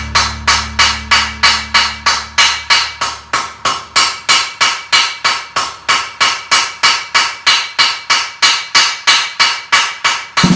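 Hand hammer striking hot steel rod on an anvil in a steady forging rhythm, about three blows a second, each with a short metallic ring.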